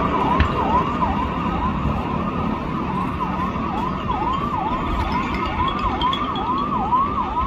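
Emergency vehicle siren wailing in rapid repeating sweeps, about three a second, over a steady low rumble.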